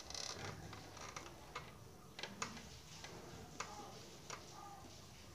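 Marker pen writing on a whiteboard: light, irregular taps and short scratchy strokes of the tip as letters are formed.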